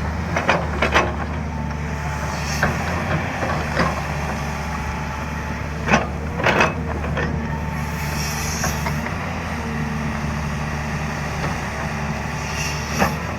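JCB 205 excavator's diesel engine running steadily under work, with a series of sharp knocks from the machine at work, the loudest about six seconds in and again near the end, and a brief hiss about eight seconds in.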